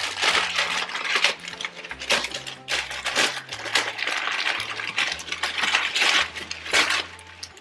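Christmas wrapping paper crinkling and tearing as a gift is unwrapped by hand, in rapid irregular crackles.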